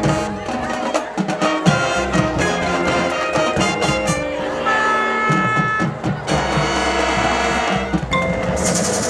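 High school marching band playing, brass over drums, with a sustained brass chord held for about a second and a half near the middle.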